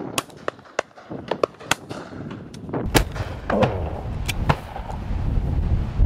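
Shotgun shots at high driven game: a quick scatter of reports, some faint and distant, some close, the loudest about three seconds in. Strong gusts buffet the microphone in the second half.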